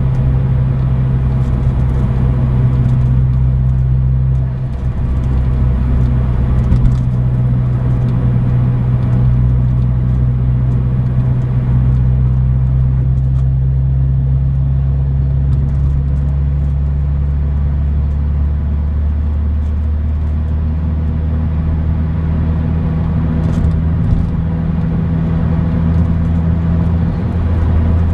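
Mazdaspeed6's turbocharged 2.3-litre four-cylinder with an ETS cat-back exhaust, heard from inside the cabin while driving: a steady low exhaust drone whose pitch shifts about two-thirds of the way through.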